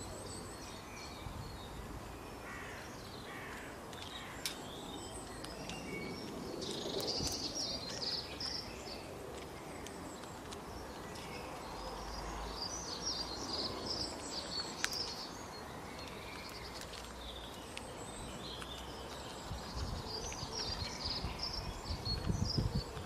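Outdoor ambience with bursts of high, rapid chirping animal calls, three times, over a steady background hiss with low rumbles.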